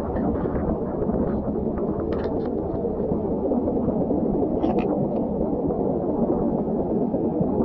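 Steady low rush of seawater washing over the shore rocks, with a few short scrapes and clicks of a knife blade against rock and shell about two seconds in and again around four and a half seconds in.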